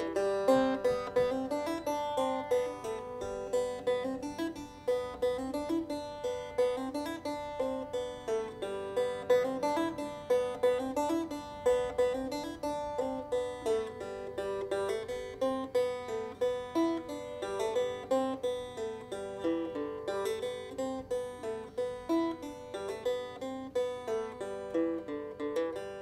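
Banjo music: a solo banjo picking quick, rolling runs of plucked notes in a steady rhythm.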